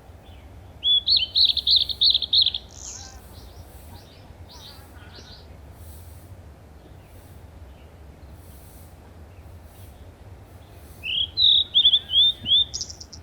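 Small birds chirping: a quick run of high, repeated chirps about a second in, a few fainter calls after it, then another rapid burst of rising chirps near the end.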